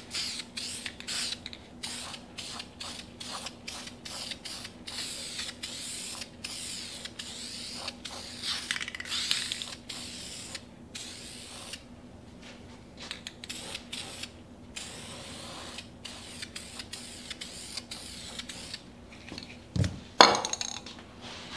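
Aerosol spray-paint can hissing in many short bursts as paint goes onto a steel part, with the can's mixing ball rattling between bursts. Near the end a sharp knock as the can is set down on the bench.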